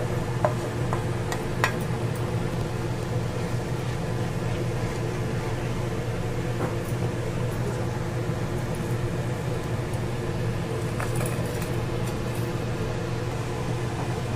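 Steady hum of an electric fan motor running, with a few light clinks of a metal spoon against a plate in the first two seconds.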